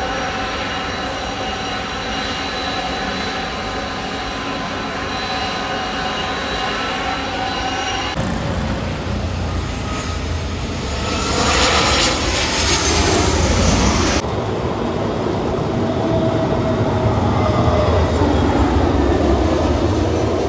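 Jet airliner engines: a steady whine, then a sudden change to a louder roar that swells and falls away, then another sudden change to a steadier engine roar.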